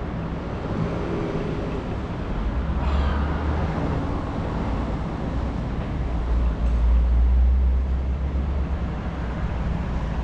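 Road traffic heard from a moving bicycle, with a heavy low rumble of wind on the microphone that swells about a second in and again from about six to eight seconds in.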